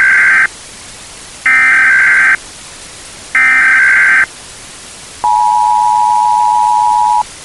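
Emergency Alert System tones: the tail of one burst of high data tones and two more bursts about a second each, then the two-tone attention signal held for about two seconds, over a steady hiss of static.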